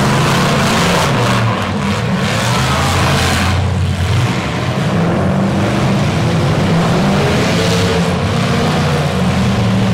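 Several demolition-derby pickup truck engines running and revving hard, rising and falling in pitch, with a few knocks in the first four seconds.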